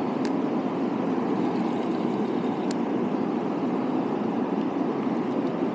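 Snake River running high and fast, a steady rushing of water, with two light clicks about two and a half seconds apart.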